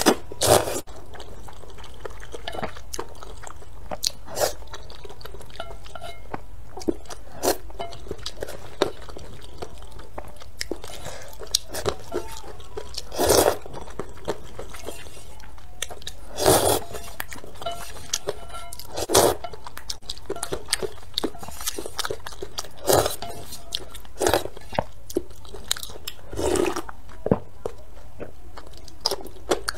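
Close-miked eating of spicy rice noodles: a noodle slurp at the start, then chewing with many small wet mouth clicks and several louder mouthfuls a few seconds apart, over a steady low hum.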